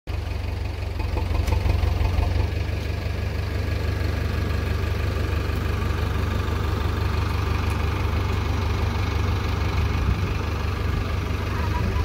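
Diesel engine idling steadily with a deep, even drone, a little louder for a moment about two seconds in.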